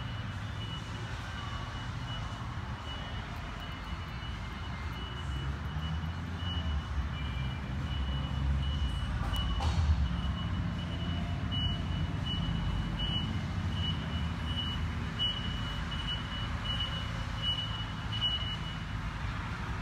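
A reversing alarm beeping steadily, about three beeps every two seconds, over a continuous low rumble. The beeping stops near the end.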